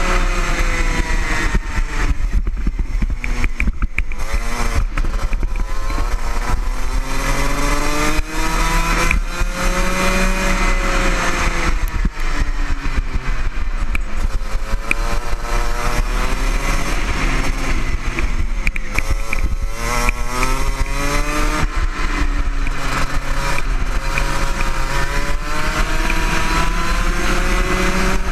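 Two-stroke racing kart engine heard close up from on board during a lap, its pitch climbing on each straight and falling away into each corner several times.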